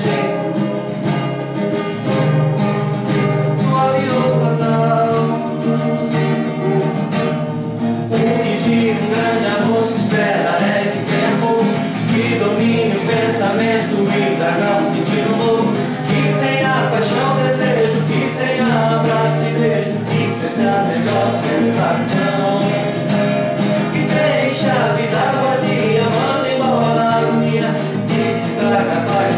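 Music: a Portuguese-language song, sung over guitar accompaniment.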